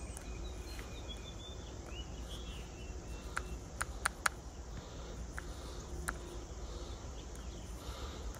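Light, sharp clicks of a plastic stylus tapping the touchscreen keypad of a NanoVNA antenna analyzer: about half a dozen taps, most of them between three and six seconds in. A faint steady background with faint chirping sits underneath.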